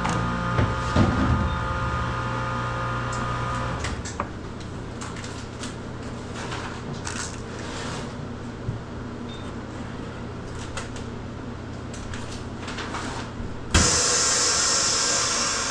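Vacuum-packing machine working on packaged meat: a motor hum with steady tones for about four seconds, then a steady whir with scattered clicks, and near the end a sudden loud hiss lasting about two seconds.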